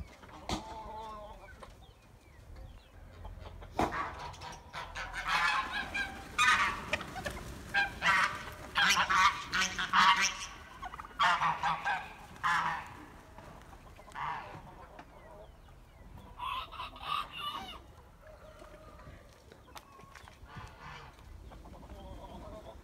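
A flock of white domestic geese honking, stirred up by the keeper's approach: a dense run of loud, overlapping calls through the middle, thinning to scattered calls later on.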